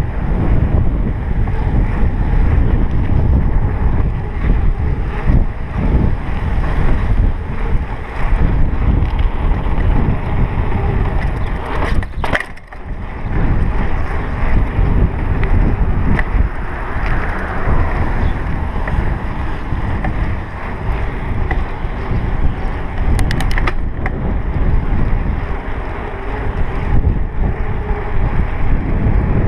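Wind buffeting a chest-mounted GoPro Hero3's microphone on a moving bicycle: a loud, steady rumble that dips briefly about halfway through. A short run of clicks comes about three-quarters of the way through.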